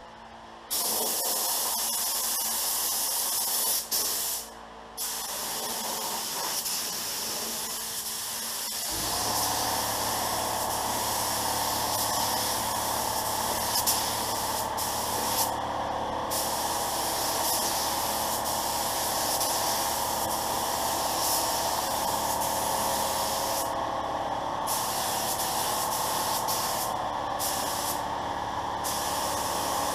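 Pro-Tek 4000 HVLP gravity-feed spray gun hissing as it sprays base coat at about 25 PSI. The air stops briefly several times as the trigger is let off between passes. A low, steady hum joins about nine seconds in.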